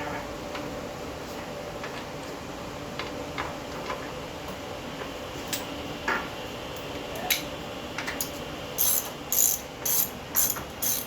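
Hand ratchet wrench turning engine mounting bolts, with scattered clinks of tools and metal. From about nine seconds in comes a run of quick ratchet strokes, about two a second.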